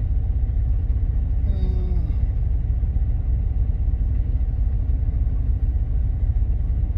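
Steady low drone of a semi-truck's engine and road noise heard inside the cab while driving. A short faint falling tone comes about a second and a half in.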